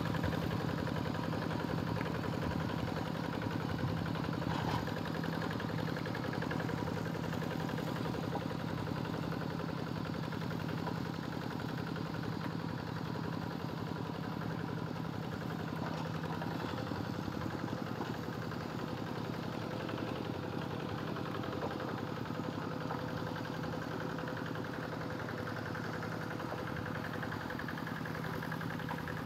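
Two-wheel hand tractor's engine running steadily as it works through a flooded rice paddy.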